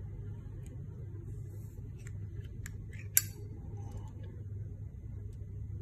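Zippo lighter's hinged lid being handled: a few light metallic clicks, then one sharp ringing clink a little over three seconds in, over a steady low hum.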